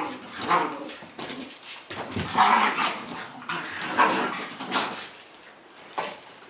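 A dog whimpering and barking in short bursts, four or so in the first five seconds, then quieter with a few clicks.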